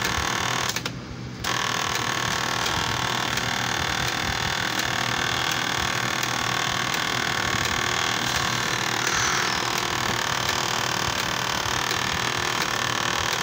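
Califone cassette player running on past the end of the recorded side: a steady hiss and deck noise, dropping out briefly about a second in.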